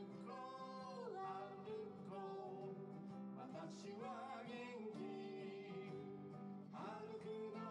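A man singing a song to his own acoustic guitar accompaniment, with long held notes that slide between pitches.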